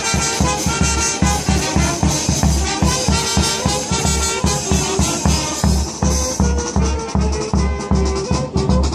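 Music with a heavy, regular bass beat and a melody over it.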